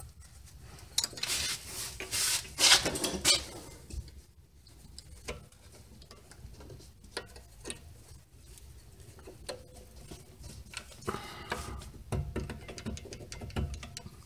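Hand work on a disc brake caliper: metal clicks and scrapes as the brake pad retaining pin is worked into the caliper and through the pad spring clip with gloved hands. A cluster of rustling and scraping comes about a second in, followed by scattered light clicks.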